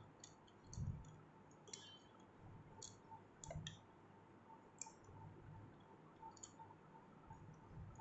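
Faint, scattered clicks and a couple of soft knocks from handling a limit switch, with multimeter test probes set against its screw terminals; otherwise near silence.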